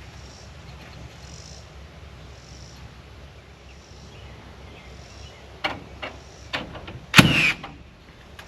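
A low engine hum runs steadily. A few sharp knocks come about two-thirds of the way in, then a louder clank with a brief falling squeal.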